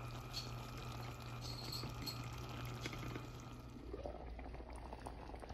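Garlic cloves in thick onion-tomato gravy bubbling faintly in a cooking pan, with small pops and sputters.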